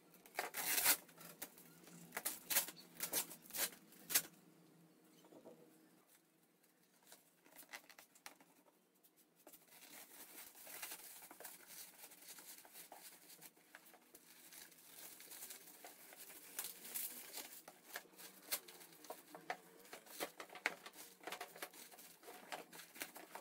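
Scissors snipping through the tape and woven plastic mesh bag around a parcel, in a few sharp cuts over the first seconds. Then the bag rustles and crinkles as it is pulled open and a cardboard carton is lifted out of it.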